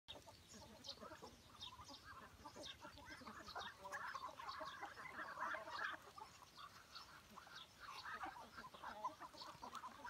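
A flock of Muscovy ducks and chickens calling softly over one another: many short overlapping calls with small high chirps among them, busiest and loudest around the middle.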